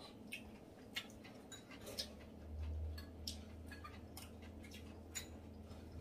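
Scattered faint clicks of chopsticks and spoons against ceramic bowls during a meal. A low hum comes in about two seconds in and swells briefly.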